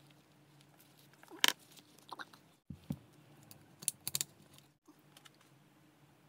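Scattered clicks and taps of hands handling a plastic water bottle and a rubber balloon stretched over its mouth, with the sharpest click about a second and a half in and a quick cluster of clicks around four seconds in.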